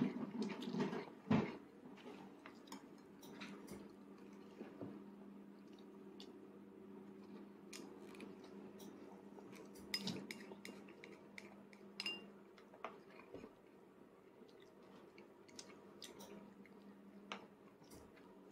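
Light, scattered clicks and taps of plastic training chopsticks against a plate, several seconds apart, over a faint steady hum.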